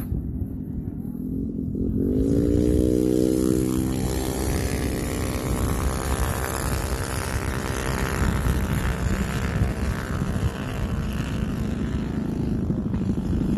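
Minibike engine revving up about two seconds in, its pitch rising, then held at high revs as it races across the ice, with wind on the microphone underneath.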